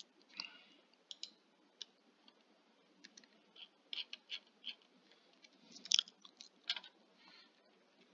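Faint, irregular clicking of a computer mouse and keys, about a dozen short clicks spread over the seconds, with a few soft breaths close to the microphone.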